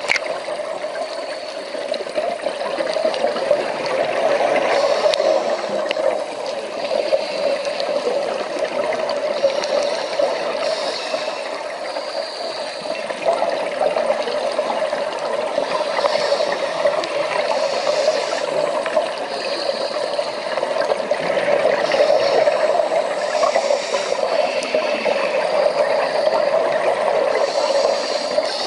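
Underwater noise picked up by a diver's camera: a steady rushing water hiss with a faint crackle, broken every second or two by short brighter bursts of hiss.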